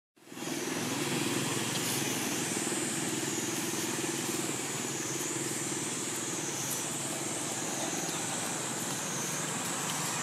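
Steady outdoor background noise: a continuous low hum with a high, slowly wavering drone, fading in just after a moment of silence at the start. No animal calls stand out.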